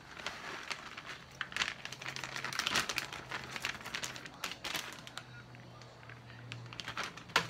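Plastic bag of shredded mozzarella crinkling as it is handled and shaken out, the crackling densest in the first half and thinning later, with one sharp tap near the end.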